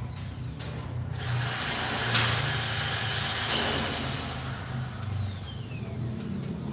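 A motor vehicle's engine running, a steady low hum under a rush of noise that swells about a second in and eases off after the middle.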